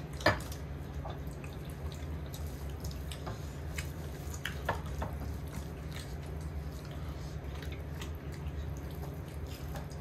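Wet clicks and smacks of people chewing food, scattered irregularly over a steady low hum, with one sharper click just after the start.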